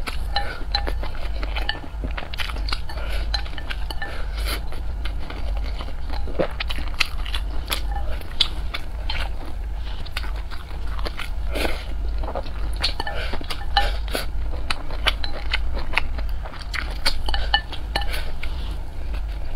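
Close-miked eating sounds: chewing mouthfuls of rice with many small wet mouth clicks, and chopsticks clicking against a glass bowl, over a steady low hum.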